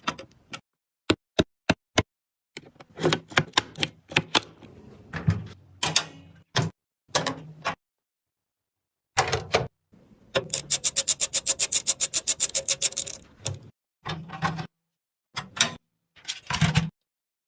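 Sharp clicks and clacks of computer hardware being handled and fitted, in short bursts broken by abrupt silent cuts. From about ten to thirteen seconds in, a fast, even run of clicks comes at about eight a second.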